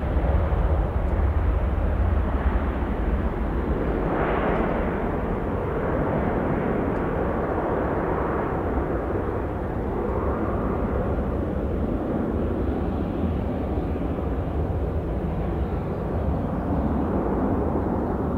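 Airbus A321 airliner's twin jet engines at takeoff thrust as it climbs away: a steady roar with a heavy low rumble, swelling about four seconds in and beginning to fade near the end.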